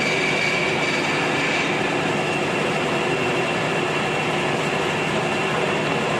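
Workshop machine running steadily, a dense mechanical noise with a high steady whine whose upper tones change about a second and a half in.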